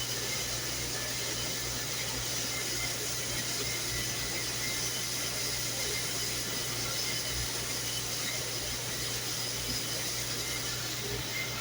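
Commercial dishwasher running: a steady rushing hiss over a constant low hum.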